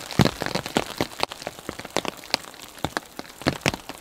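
Heavily falling snow pattering on the woodland: an irregular, quick patter of small ticks over a light hiss.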